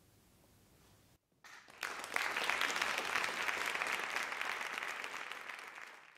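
Audience applauding, starting about a second and a half in after faint room tone, then cutting off abruptly near the end.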